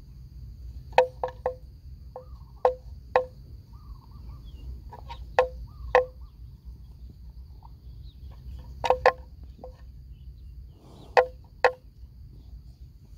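Cattle grazing, with sharp hollow knocks at irregular intervals, singly and in quick pairs. A steady high insect drone runs underneath.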